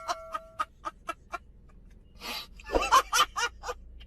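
An animal's calls: a run of short, quick pulses, a brief noisy burst, then a faster rattling series of calls.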